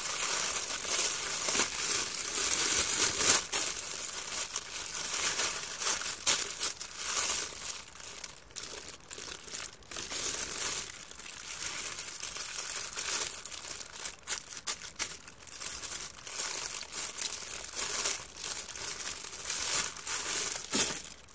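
Plastic packaging crinkling and crackling as it is handled by hand: a poly mailer bag and the clear plastic wrap around the item being pulled and shifted, in an irregular stream of small crackles.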